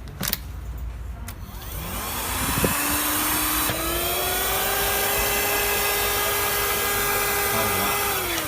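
A click, then the motor of a 120 W handheld car vacuum cleaner spins up with a rising whine. The whine steps up to a steady pitch, runs evenly with a rushing hiss of air, and starts to wind down near the end.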